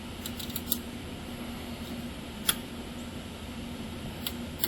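A few sharp metallic clicks and taps as a hose clamp is handled and fitted onto a rubber oil breather hose, over a steady low hum. The clicks come as a small cluster at the start, one about halfway through, and two more near the end.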